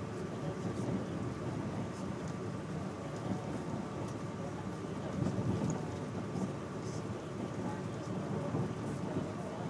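Passenger train rolling along the track, heard from inside the carriage: a steady low rumble with faint high clicks.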